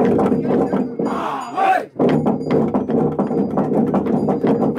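A crowd of people shouting and chanting together in rising and falling calls, over many fast, irregular knocks. The voices break off briefly about two seconds in, then resume.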